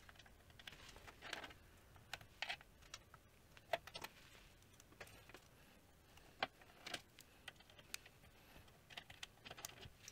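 Faint, irregular small clicks and ticks of an Allen key turning out the small bolts of a 3D printer's bottom panel, with the bolts and key being handled.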